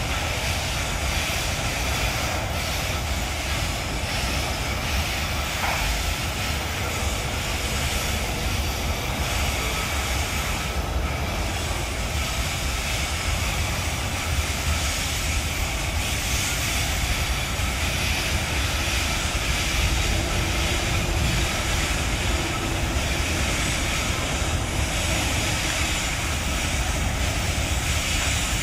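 Freight train of covered hopper cars rolling steadily over a viaduct, a continuous rumble of wheels on rail, with the droning of its diesel locomotives working ahead of the train.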